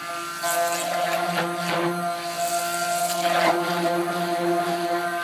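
Stick blender motor running steadily in soap batter, a constant buzzing hum, mixing the fragrance oil into the soap.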